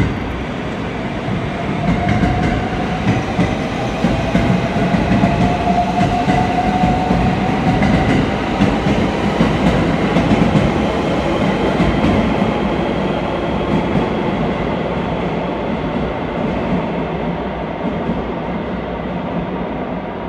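521 series electric multiple unit running along the platform and away, with steady wheel-on-rail rumble. A motor whine rises slightly in pitch a couple of seconds in, and the noise fades gradually toward the end.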